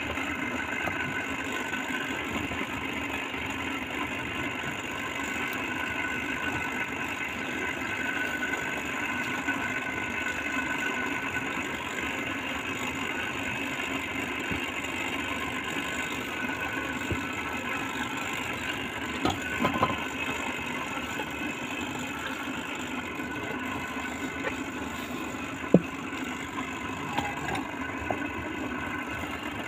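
An engine running steadily, with a few soft knocks about two-thirds of the way through and one sharp click a little later.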